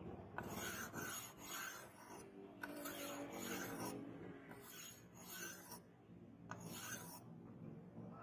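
An abrasive sanding block is scrubbed back and forth along the flat of a wet steel billhook blade, giving a rasping stroke about once a second.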